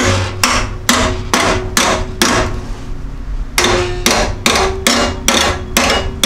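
Hammer blows on steel tabs, folding them under the back of a 2x6 steel-tube rocker panel. There are about two blows a second, each ringing briefly, with a pause of about a second midway.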